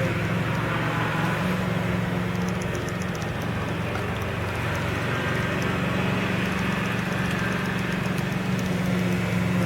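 Steady low mechanical hum, with faint quick light ticks over the middle part.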